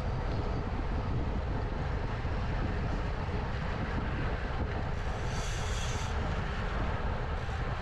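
Wind rushing over the microphone of a camera on a racing bicycle moving at about 45 km/h, a steady rumbling rush mixed with road noise. A brief high-pitched sound comes in about five seconds in.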